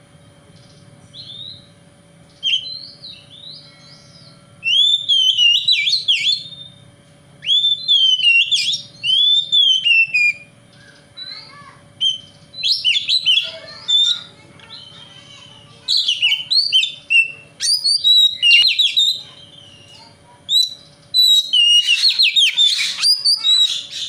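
Oriental magpie-robin (kacer) singing: whistled phrases of quick rising and falling notes, soft at first and then loud from about five seconds in, coming in bursts of a few seconds with short pauses between.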